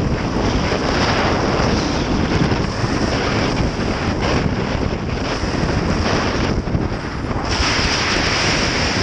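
Heavy wind rushing over the microphone of a motorcycle-mounted action camera at riding speed, with the single-cylinder engine of a Honda XR650L dual-sport and its tyres on the dirt buried underneath. The hiss grows brighter near the end.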